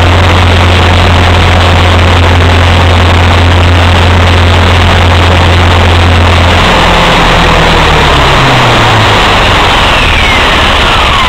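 Align T-Rex 450 electric RC helicopter heard from its own onboard camera: a loud, steady rotor hum with dense rushing noise as it flies low. About two-thirds of the way through, the hum breaks and falls in pitch as it sets down. Near the end, a motor whine glides down as the rotor spools down after landing.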